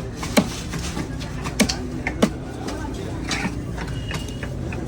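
Heavy fish-cutting knife chopping into a large seer fish on a block: three sharp strikes, the first early and two more close together near the middle, over background voices.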